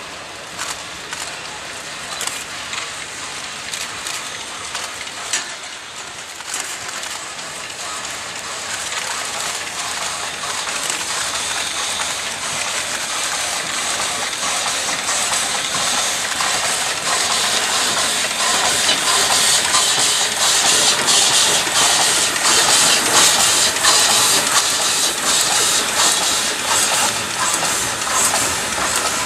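Ty2 class 2-10-0 steam locomotive working a train as it approaches and passes close by, its exhaust, steam and running gear growing steadily louder as it draws near.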